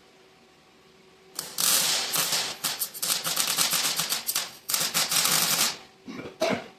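MIG welder crackling in short runs, laying weld to fill cut marks in the steel frame of a 1959 Ford F100. It starts about a second and a half in, runs about four seconds with brief breaks, and then stops, followed by two short noises near the end.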